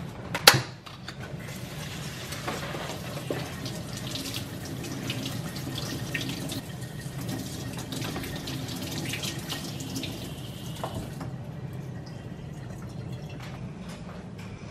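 Kitchen faucet running into a stainless steel sink while strawberries and rhubarb stalks are rinsed under the stream, after a couple of sharp plastic clicks from the berry clamshell at the start. The water stops suddenly about eleven seconds in, followed by faint rustling of a paper towel.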